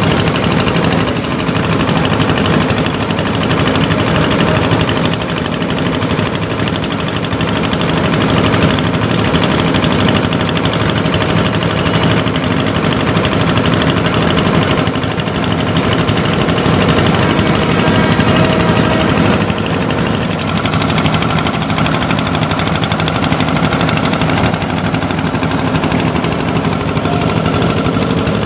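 Engine-driven water pump sets running steadily with a fast, even chugging, pumping floodwater out through hoses.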